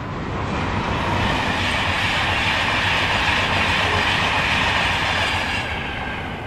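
A Class 91 electric locomotive hauling an InterCity 225 set of Mk 4 coaches passes at speed: a steady rush of wheels on rail that swells, holds, and fades near the end as the train goes by.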